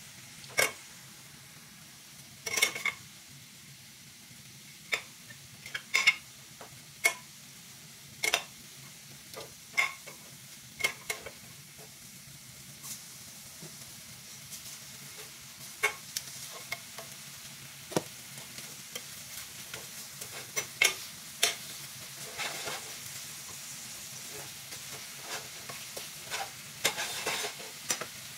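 Lamb pieces sizzling in a stainless steel frying pan with a steady hiss. Irregular sharp clicks and scrapes come from a metal slotted spoon and knife turning the meat against the pan.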